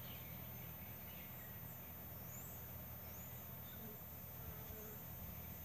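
Honey bees humming steadily around an opened nuc box, with a few faint bird chirps about the middle.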